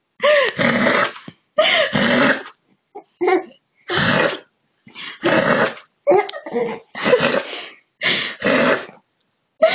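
A two-month-old baby cooing and grunting in a string of about ten short, breathy vocal bursts with brief pauses between them.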